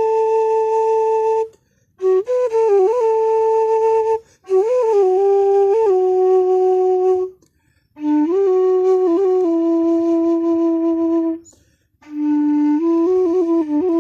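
Bansuri bamboo flute improvising: long held notes decorated with quick ornamental turns, played in five phrases separated by short breath pauses. The held notes step lower in pitch from phrase to phrase.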